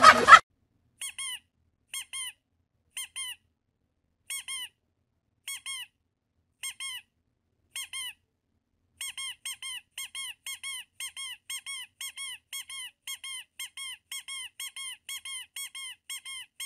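A seated leg-extension machine squeaking with each rep, a short double squeak every time the legs move. The squeaks come about once a second at first, then speed up to about two a second from roughly halfway through. A brief burst of voices and laughter opens the clip.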